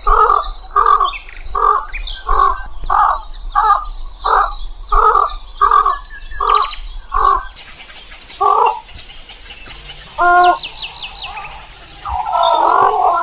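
An animal calling in a rapid series of harsh calls, about one and a half a second, which slows to single calls and a last rough burst near the end, with small birds chirping faintly behind.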